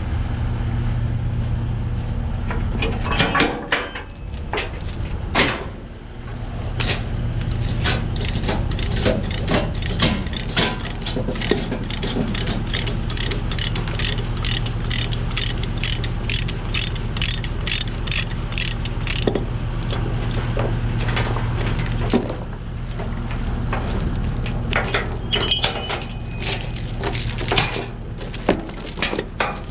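A hand ratchet cranked in quick repeated clicks, about two to three a second, over the steady low hum of an idling engine.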